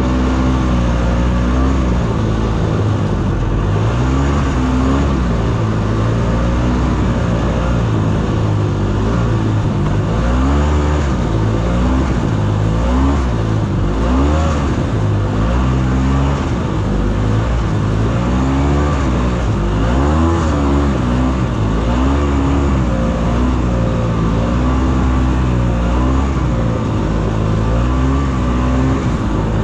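Ski-Doo Tundra snowmobile engine running under way on a trail, its pitch rising and falling again and again as the throttle is worked.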